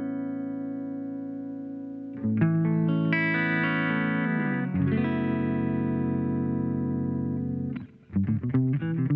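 Electric guitar played through a compressor effect: a held chord rings and fades, a new chord is struck about two seconds in with notes sliding, rings on long and even, then gives way to short picked notes near the end.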